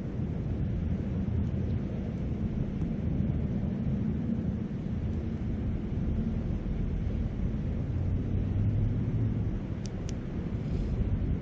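Steady low rumbling noise of wind on the microphone and a flowing river, with two sharp campfire crackles about ten seconds in.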